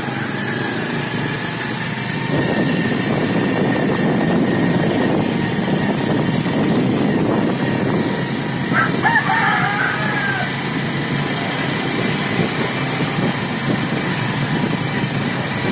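Small motorcycle engine running with steady wind and road noise while riding along. About nine seconds in, a rooster crows once, for about two seconds.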